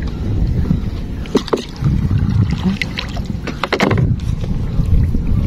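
Small wooden canoe being paddled: paddle strokes and water lapping at the hull over a steady low rumble, with a couple of sharp knocks about one and a half and four seconds in.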